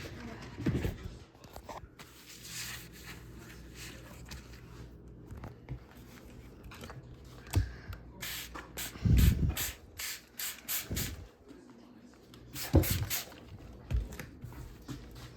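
Spray bottle squirting in several quick bursts, mixed with knocks from handling.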